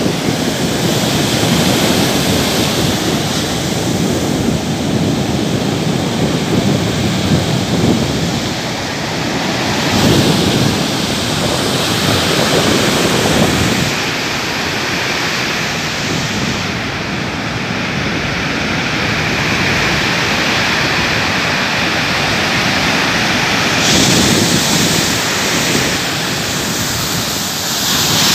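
Ocean surf breaking and washing up the sand, rising and falling with each wave, with wind buffeting the microphone.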